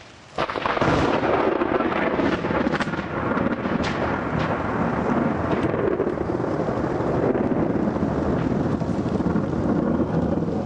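A loud thunderclap from a close positive lightning flash breaks about half a second in, then keeps rumbling heavily as rolling thunder.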